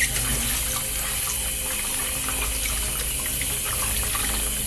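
Tap water running steadily into a plastic basin of water and over a fish being rinsed by hand, with small splashes as the hands work the fish.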